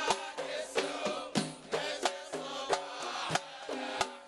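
Kuwaiti folk music by a live troupe: drums and other percussion beating out the rhythm with instruments playing, in a short break between sung verses.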